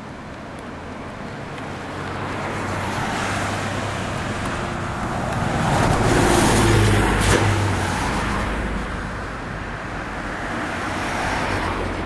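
A bus approaching and passing close by on the road: engine and tyre noise build to a peak about halfway through, then fade. The noise swells again briefly near the end.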